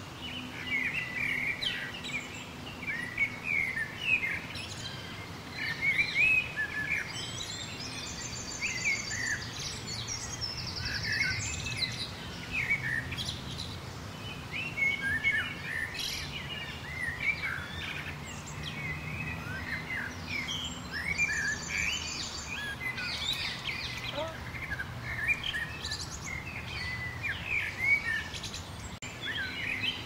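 Dense chorus of many songbirds chirping and calling over one another, with a high, rapid pulsing trill heard twice above the rest, over a faint steady low background rumble.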